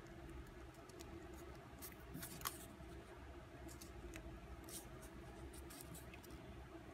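Faint crinkling of a small strip of archival drawing paper being pressed and creased into accordion pleats by hand, with a few sharp little crackles scattered through.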